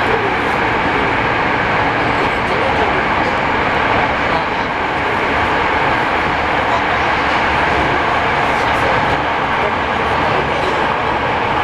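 Steady running noise of a Yokohama Municipal Subway 3000S train heard from inside the car as it travels through the tunnel.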